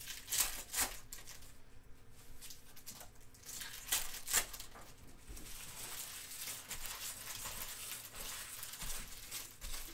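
Panini Legacy Football trading-card pack wrapper being torn open and crinkled by hand. There are sharp crackles about half a second in and again around four seconds in, then several seconds of steady rustling.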